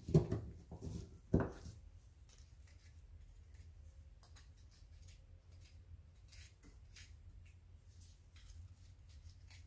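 A knife blade picking and scraping at a firework shell's casing: a few sharp knocks and clicks in the first second and a half, then faint scattered ticks and scratches.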